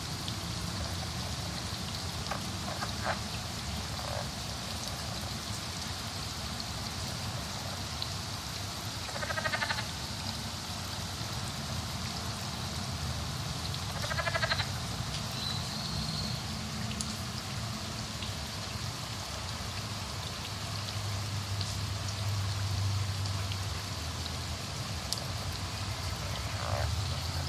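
An unidentified animal giving a call of rapidly repeated pulses, about a second long, twice, roughly five seconds apart, with a few fainter short calls now and then. Under it runs a steady hiss like rain and a low drone.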